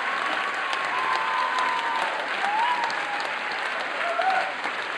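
Audience applauding steadily, a dense patter of many hands, with a few voices calling out over it.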